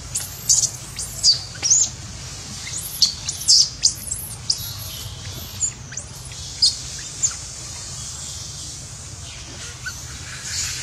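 A run of short, high-pitched chirping calls, many sliding down in pitch. They come thick and fast for the first seven seconds, then only a few more.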